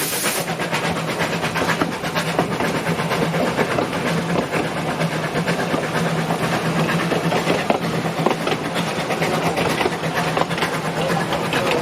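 Narrow-gauge railway machinery giving a rapid, even mechanical rattle over a steady low hum; a hiss of steam cuts off about half a second in.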